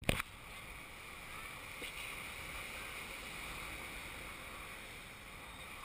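Steady beach ambience of breaking surf and wind noise, cutting in with a click.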